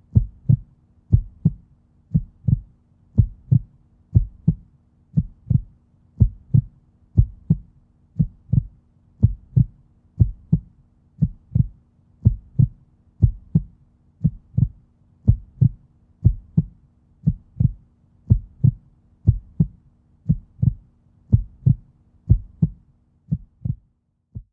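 Heartbeat sound effect: a steady lub-dub, pairs of short low thumps about once a second, growing fainter in the last few beats near the end.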